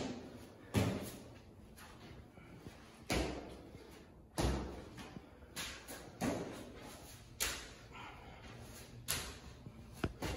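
Dull thuds of hands, feet and body landing on artificial turf during a burpee and push-up workout, about eight at irregular intervals, each with a short echo in the room.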